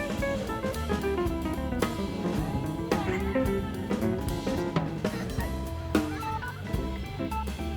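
Background music: an upbeat instrumental with a drum kit beat and guitar.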